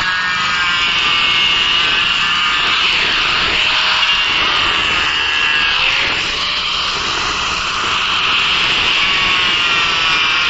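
Electric power tool running steadily while working wood, its pitch dipping slightly now and then as it takes load.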